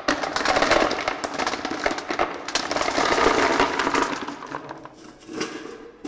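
White pebbles poured from a metal bucket into a clear box, clattering against each other and the box walls as they pile up. The pouring tails off about four seconds in, with a last short clatter after five seconds.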